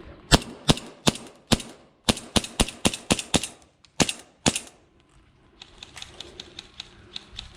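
Airsoft gun firing about a dozen sharp shots over four and a half seconds, first at about one every 0.4 s, then in a quicker run of six, then two more. After that there is only a faint steady hiss with light ticks.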